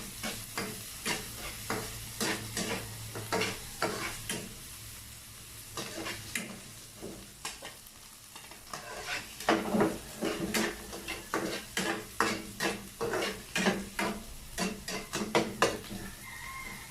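Spatula or ladle scraping and stirring food in a sizzling frying pan, in quick repeated strokes that ease off in the middle and come back louder and faster about halfway through.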